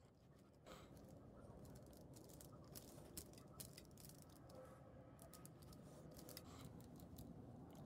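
Faint scratching and scattered clicks of a blue plastic air hose being pushed and twisted onto a small brass barbed fitting by hand.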